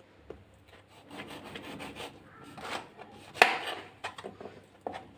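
Kitchen knife sawing through a lemon, cutting it into rounds on a cutting board: repeated scraping strokes, with a sharp knock about three and a half seconds in as the blade meets the board.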